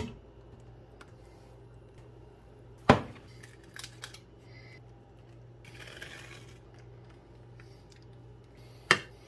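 A utility knife cuts open duct tape and a plastic bag around a cooked chicken breast on a ceramic plate. There are two loud sharp clacks, about three seconds in and near the end, with a few small clicks and a brief crinkly rustle of tape and plastic between them. A low steady hum runs underneath.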